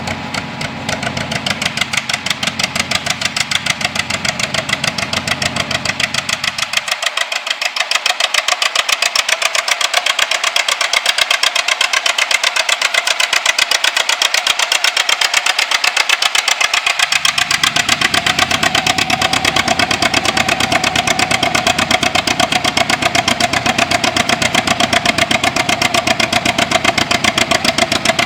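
Tractor engine running with a rapid, even exhaust beat, getting louder about eight seconds in and then holding steady.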